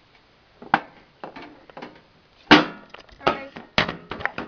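A series of about six sharp knocks and clatters of hard objects being handled on a cluttered worktable, the loudest about halfway through.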